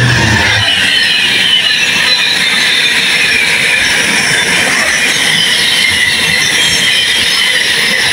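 Intermodal container freight train passing at speed close by: the locomotive's low drone ends about half a second in, leaving the loud, steady rolling of the container wagons with high squealing tones that slowly fall in pitch.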